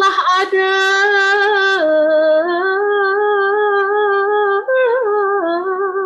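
A woman singing a Malay gurindam, holding one long drawn-out vowel with a brief break near the start. Her pitch steps down and back up several times, with fine wavering ornaments on the held notes.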